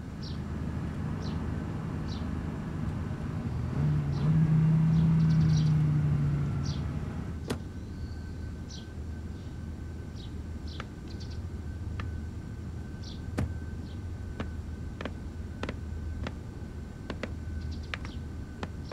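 A car's engine running as it pulls in and comes to a stop, loudest about four to seven seconds in. Then a single sharp click at about seven and a half seconds, followed by scattered light ticks and a faint steady high tone.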